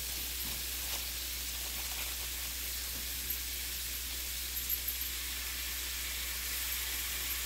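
Chicken and vegetable kebabs sizzling on the hot plates of a George Foreman electric grill as marinade is spooned over them: a steady hiss with a few faint ticks.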